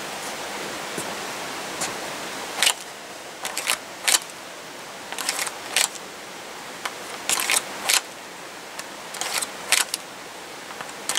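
Clusters of sharp clicks and clacks every second or two as a full-size 1911 pistol is drawn from and pushed back into a Kydex-and-leather hybrid holster, over a steady hiss.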